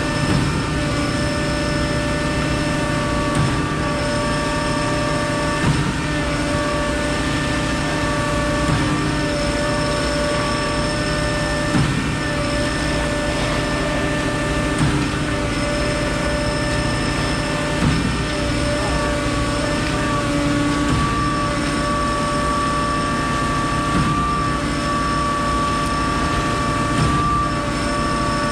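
Concord 40-metre Z-boom concrete pump truck running while pumping: a steady engine drone with a high hydraulic whine, and a short knock about every three seconds as the pump cylinders change stroke.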